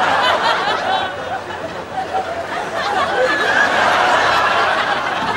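Audience laughing, a continuous crowd laugh without a break.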